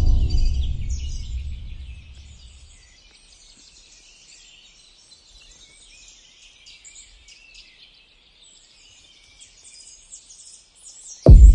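Many birds chirping, a dense, quiet chorus of short high calls. Soft ambient music fades out over the first two seconds or so, and a sudden loud deep rumble cuts in near the end.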